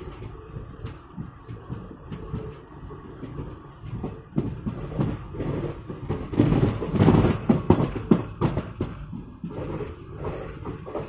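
Passenger train running on the track, its wheels knocking and clattering steadily over the rail, growing louder for about two seconds in the middle.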